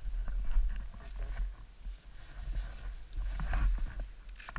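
Snowmobile heard through an onboard microphone: a low, uneven rumble with a few scattered light knocks. The drive belt is judged way too tight.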